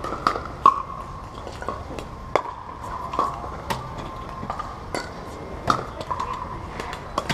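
Pickleball paddles striking hollow plastic Dura 40 balls: an irregular string of about a dozen sharp pocks, each with a brief ringing tone.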